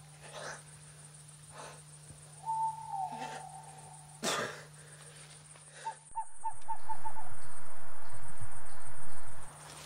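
Owl calls over a faint forest ambience: a high hoot that falls in pitch about two and a half seconds in, and a short run of quick repeated notes about six seconds in, with a few short sharp noises between. A loud rushing noise swells up about six seconds in, holds steady, and cuts off suddenly near the end.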